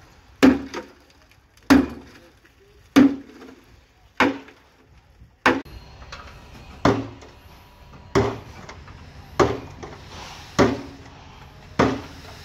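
A sharp knock repeating at an even beat about every 1.2 seconds, each with a short ring after it. It keeps its timing straight through a change of scene, so it is a percussion beat laid over the footage rather than a sound from the site.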